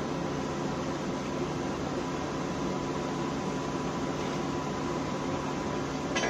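Steady drone of an idling engine with fan-like hiss and a low hum, heard from inside a vehicle cab; a short click near the end.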